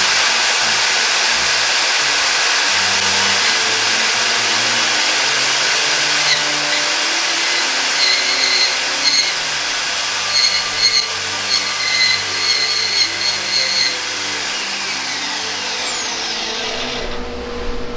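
Portable band saw running and cutting through a thick pipe, freehand, with a steady loud motor-and-blade noise. A faint, intermittent high-pitched squeal comes in from about eight seconds in. The saw stops about a second before the end.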